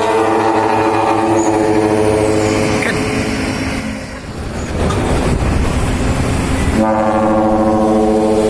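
Dump truck's trumpet-style air horn sounding a long blast of one held chord that fades out about three seconds in, followed by a rough rumble of the truck, then a second long horn blast starting near the end.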